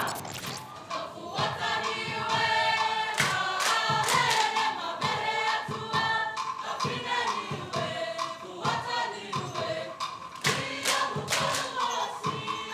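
A large group of voices singing together in a choir-like chorus, with sharp percussive strikes coming in now and then.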